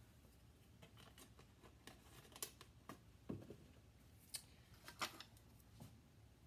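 Faint, scattered light clicks and taps of small kitchen items being handled and set down on a countertop.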